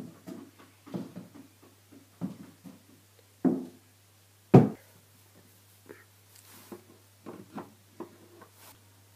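Footsteps and knocks on a wooden floor, irregular and a few per second, with one heavy thump about four and a half seconds in, over a faint steady low hum.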